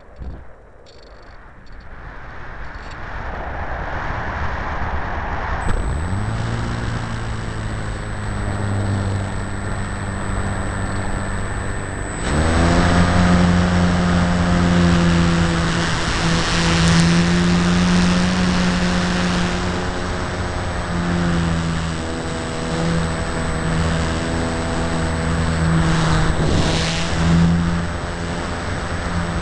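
Motor and propeller of an RC Tiger Moth model airplane, heard from a camera on board: it spins up about six seconds in and runs steadily with a thin high whine, then throttles up louder about twelve seconds in for the takeoff run and flight.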